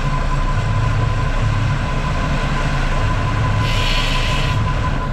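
Fishing boat's engine running, a steady low drone, with a brief hiss of water or spray about four seconds in.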